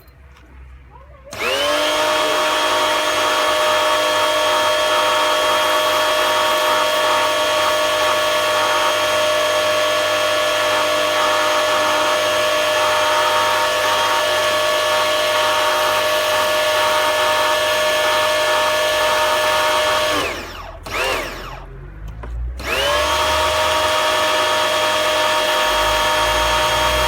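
Bosch AQT 35-12 electric pressure washer's motor and pump spinning up and running with a steady whine while spraying. It winds down and stops about 20 seconds in, gives a short blip, then starts again and runs on.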